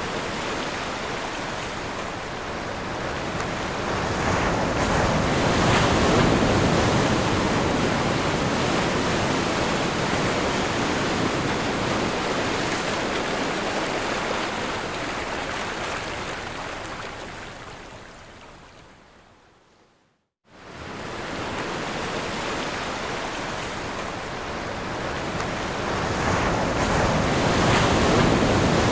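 Ocean waves washing on the shore in a steady surf, swelling louder about six seconds in. It fades out to brief silence about two-thirds of the way through, then fades back in and swells again near the end.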